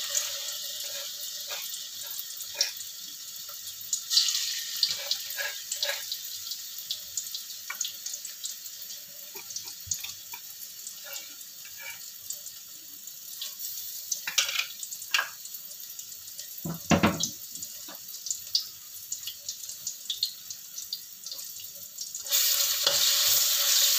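Ground shallot, garlic and chili spice paste frying in hot oil in a wok: a sizzling hiss with scattered spitting pops, dying down over the first seconds. A heavier thud comes about two-thirds through, and the sizzle grows louder again near the end.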